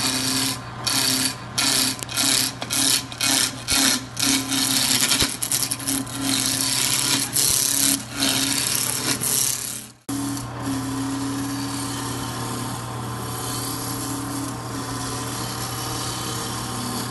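Wood lathe running with a turning tool cutting into the spinning wood: a string of short, rasping cuts for about ten seconds, then, after a brief break, one longer, steadier cut over the lathe's hum.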